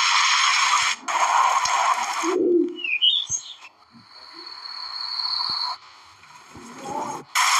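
Alarm-clock app sound effects: roughly one-second bursts of harsh noise, with short bird-like chirps and a steady high tone in between.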